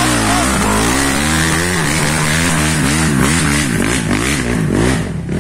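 Honda CRF four-stroke single-cylinder dirt bike engine revving close by, its pitch rising and falling in repeated throttle blips as the bike is worked up a steep, leaf-covered trail. The blips come quicker in the second half, and the sound drops a little near the end.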